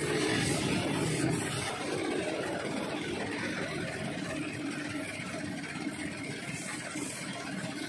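Air-fed paint spray gun hissing as it sprays paint, over the steady drone of a running air compressor.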